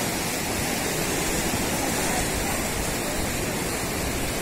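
River in flood rushing fast over and around a bridge, a steady unbroken noise of fast-moving water.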